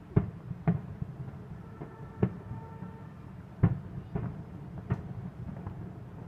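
Aerial firework shells bursting: about seven booms at uneven intervals over a low rumble. The loudest come just after the start and about three and a half seconds in.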